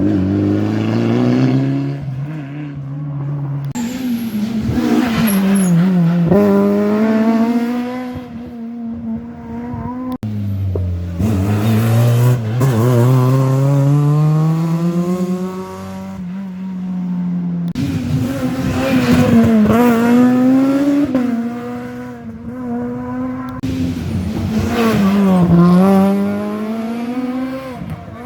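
Rally cars passing one after another on a tarmac special stage, engines revving hard and dropping between gear changes and braking, with the pitch rising and falling on each pass.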